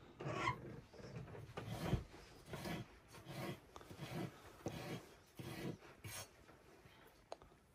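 Rough scraping strokes repeated about once or twice a second, each short and even, as something is rubbed or scraped back and forth by hand.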